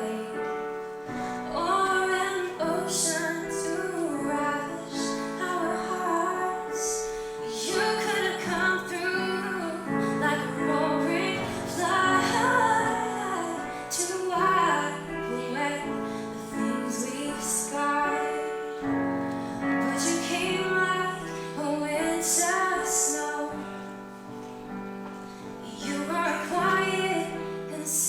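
A woman singing a slow song live, with piano accompaniment holding chords beneath her voice.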